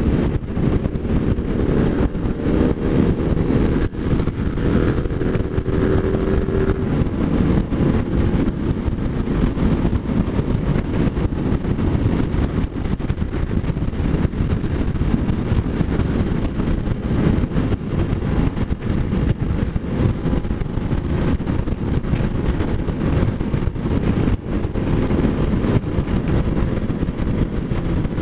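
Kawasaki motorcycle riding at road speed: a steady rush of wind on the microphone over the engine. A few seconds in, the engine note climbs.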